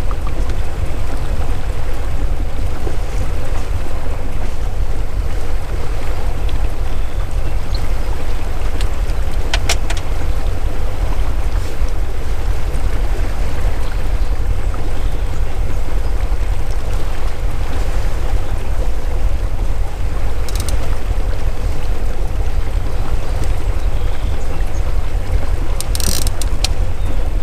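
Motorboat under way at trolling speed: a steady low rumble of engine and wind over the microphones. A couple of brief clicks, about ten seconds in and near the end.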